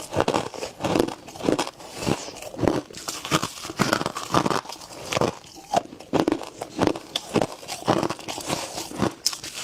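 Freezer frost being bitten and chewed close to the microphone: a steady run of crisp, crackling crunches, about two a second.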